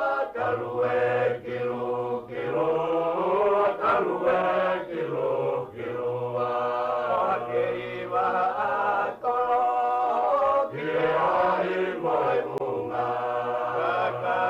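Background music: several voices singing together in harmony, with long held low notes beneath the melody.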